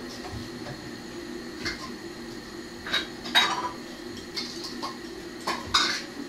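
Cutlery clinking and scraping against dishes, about half a dozen short clinks with the loudest about three and a half seconds in, over a faint steady low hum.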